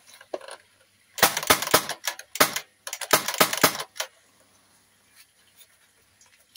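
Handling clatter from a homemade SA80-style rifle body built around a CO2 BB pistol: sharp clicks, knocks and rattles of hard plastic and metal parts in three quick bursts over about three seconds, starting about a second in.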